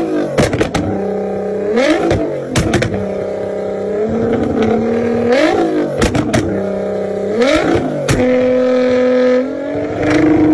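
Nissan GT-R R35's twin-turbo V6 revved over and over while standing: each rev climbs, holds steady for a second or so, then falls away. Sharp exhaust pops and bangs crack between the revs.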